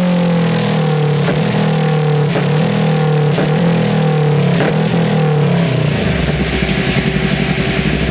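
Yamaha YZF-R3 parallel-twin engine running through an OVER aftermarket exhaust. It holds high revs, the pitch easing down and wavering, with four sharp clicks about a second apart. About six seconds in it drops to a low, pulsing idle.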